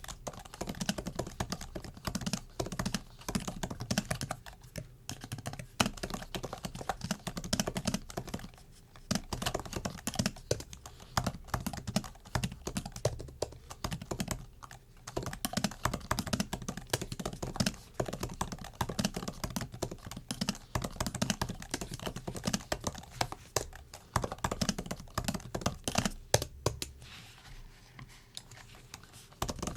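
Typing on a MacBook's built-in keyboard: a fast, continuous run of key clicks broken by a few short pauses, thinning out to fewer, softer taps near the end.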